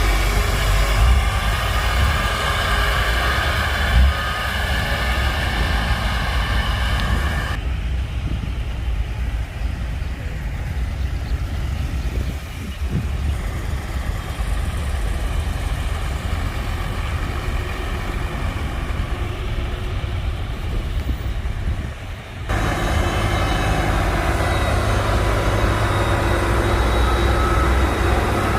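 Heavy diesel engine of road-construction machinery running steadily under load. From about 8 s to about 22 s the sound turns duller, losing its higher tones, then returns to full brightness.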